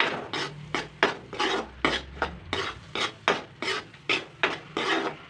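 Spoon or spatula scraping and stirring a thick masala paste frying in oil in a pan, in quick repeated strokes about three a second.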